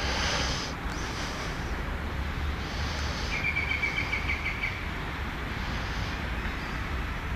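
Outdoor park ambience: a steady low rumble with small birds chirping, and a rapid ticking bird trill about three and a half seconds in that lasts just over a second.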